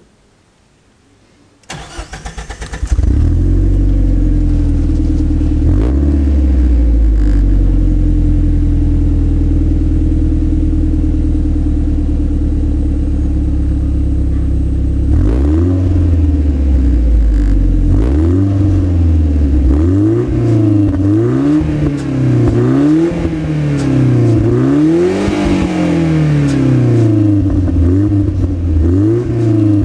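Nissan 200SX engine cranked on the starter and catching about three seconds in, then idling steadily. From about halfway on it is revved in repeated quick blips, the pitch rising and falling about once every second and a half.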